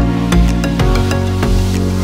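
Background electronic music: sustained synth chords, with a single kick drum beat at the start and the steady beat otherwise dropped out.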